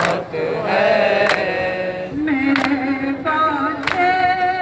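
Male voices chanting a nauha, a Shia mourning lament, in long held notes. About every 1.3 seconds, four times, a sharp slap of matam (hands beating on chests) keeps time.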